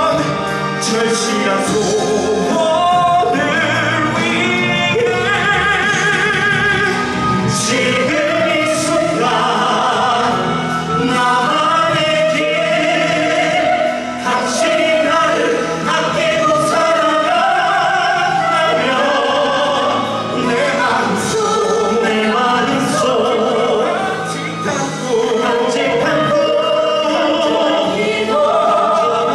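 Musical-theatre singers performing a ballad live with instrumental accompaniment, holding long notes with wide vibrato.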